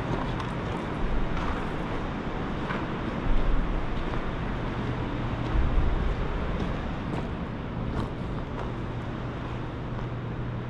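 Steady low rumbling background noise with faint, irregular clicks, and two dull low thumps about three and five and a half seconds in.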